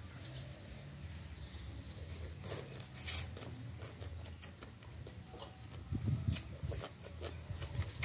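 A person slurping up a strand of rice vermicelli noodles about three seconds in, then chewing with wet clicks and smacks near the end.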